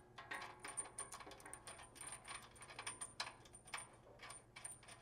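Faint, irregular metallic clicks and clinks of a 12 mm fine-thread bolt and its washer being handled and started by hand into a steel bumper bracket.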